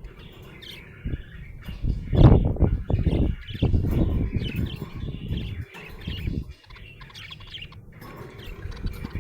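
Budgerigar chirping and twittering in quick short calls. Louder low rustling bursts come about two seconds in and last a couple of seconds.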